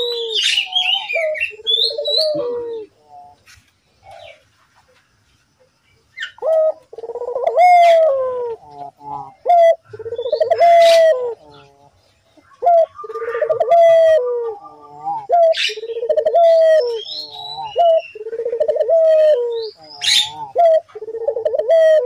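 A collared dove (burung puter) cooing over and over in a steady series of low coos, each rising then falling in pitch, with a pause about three to six seconds in. Thin, higher chirps come in between the coos.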